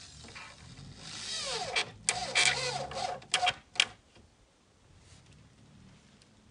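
Cordless drill-driver whirring up in pitch, then in several short trigger bursts, driving a screw into wooden board.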